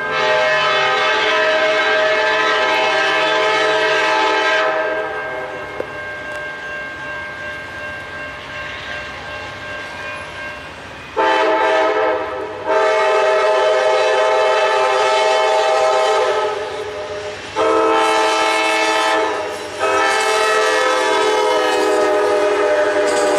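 Amtrak GE P42DC locomotive's air horn sounding a series of blasts as the train approaches: one long blast at the start, then after a pause a short one followed by three longer ones. The coaches are heard passing near the end.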